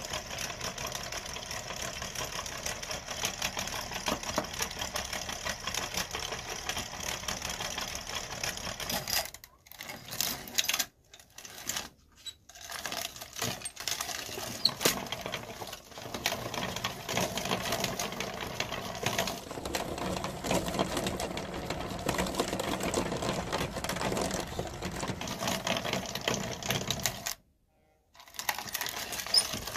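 Hand-cranked metal meat grinder turned by its spoked flywheel, the auger running mostly empty with a fast, steady mechanical rattle. The sound cuts out briefly a few times.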